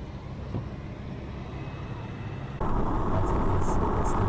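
Road and engine noise of a moving car heard inside the cabin, a steady low rumble. About two and a half seconds in it cuts suddenly to a louder, hissier drive noise of a car at speed.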